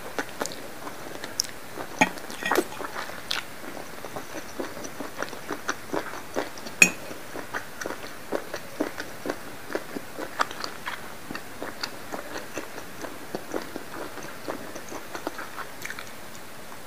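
Close-up chewing of black squid ink pasta: wet, sticky mouth smacks in quick, irregular succession, with a few sharper clicks, the loudest about seven seconds in.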